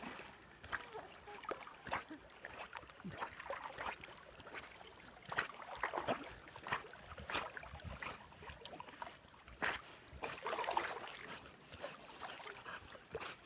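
Water sloshing, with small irregular splashes around a swimming dog.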